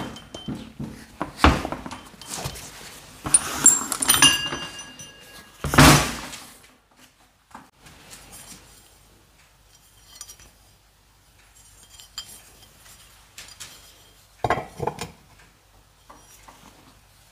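Metal parts being handled and set down: sharp clinks and knocks, with one clang about four seconds in that rings on for about a second. Near the end there is another cluster of knocks as a drilled steel brake disc is set onto a scooter's cast wheel hub.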